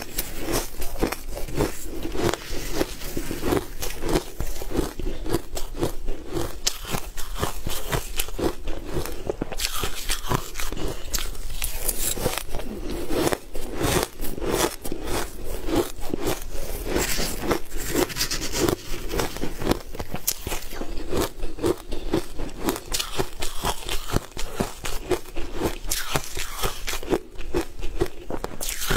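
Close-miked crunching and crackling of crumbly frozen food being bitten and chewed: dense, crisp crunches that go on without a break.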